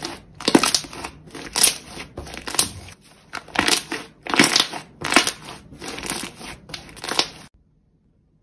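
Thick, dough-like cream-coloured slime being kneaded and folded by hand, a squishing crackle with each press, about a dozen in a row, stopping suddenly near the end.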